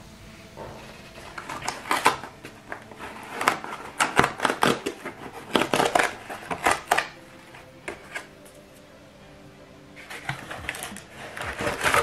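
Cardboard mailer envelope being torn open along its perforated tear strip: a run of short, rapid ripping and crackling tears, then cardboard being handled and rustled near the end.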